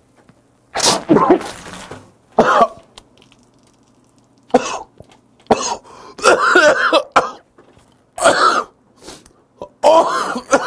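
A man coughing hard in a string of about seven choking coughs, with throat clearing, after a shot of soju went down the wrong way and up his nose.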